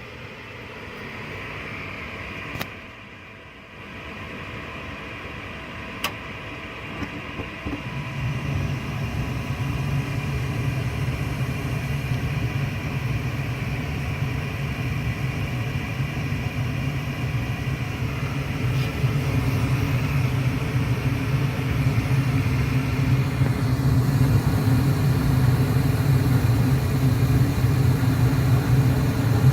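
2002 Lennox Elite gas furnace starting up: the draft inducer whirs steadily, with a couple of sharp clicks from the controls. About eight seconds in the burners light and a low, steady flame rumble takes over and slowly grows louder.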